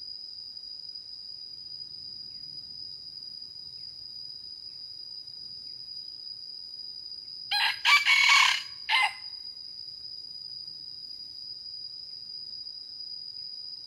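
A red junglefowl cock crows once about halfway through, a short crow of about a second and a half in three parts that stops abruptly, over a steady high-pitched insect drone.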